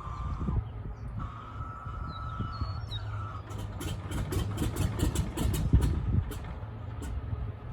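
Start-up of a Beechcraft JRB-6's radial engine: a high starter whine that falls away about three seconds in, then sharp clicks and irregular pops as the engine turns over and begins to fire, over a steady low hum.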